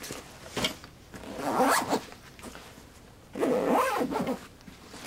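Zipper on a Red Rock Outdoor Gear Assault Pack being pulled in two strokes, one about a second in and another about three and a half seconds in, with a short click just before the first.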